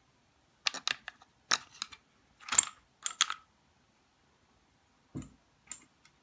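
Small hard parts of a Manfrotto Twistgrip smartphone clamp being handled: quick clicks and taps in clusters for the first three and a half seconds, then a dull knock about five seconds in and two light clicks.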